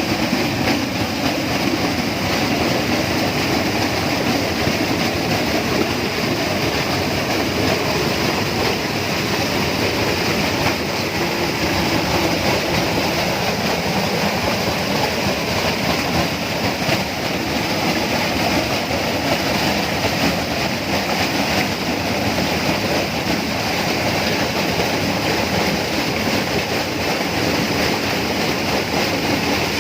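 Steady, unbroken rush of running water in a tropical rainforest, loud and even throughout.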